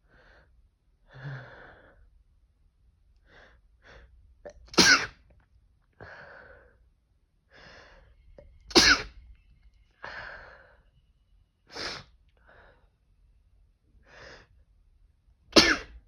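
A person sneezing four times, about every three to four seconds, with breathy, catching breaths building up between the sneezes. The sneezes are induced by tickling the nose with toilet paper.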